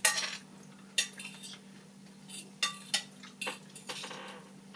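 Cutlery clicking and scraping against plates while eating, with about half a dozen sharp clinks spread through, over a faint steady hum.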